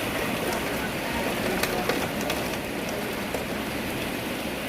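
Steady heavy rain falling, with scattered sharp ticks of drops striking nearby surfaces.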